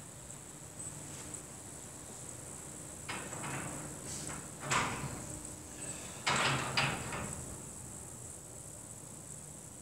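Three short bursts of movement noise from a man doing sailor push-ups on a gym floor, starting about three seconds in and loudest in the middle, over a steady faint high-pitched whine.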